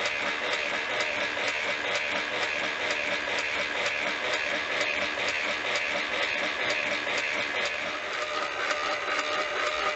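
Battery-powered motor and noisemaker of a 1968 Mattel Major Matt Mason Firebolt Space Cannon toy running, driving its spinning radar dish: a rapid, even clatter of clicks over a steady whir.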